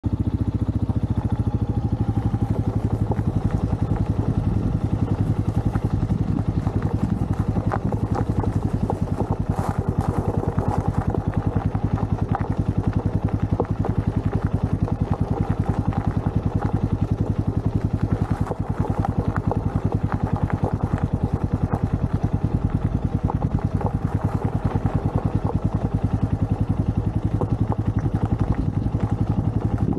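Royal Enfield Meteor 350 motorcycle's single-cylinder engine idling with a steady, even beat.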